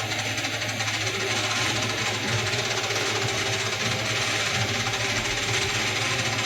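Lathe running steadily: a constant motor hum with a dense hiss of machine noise above it.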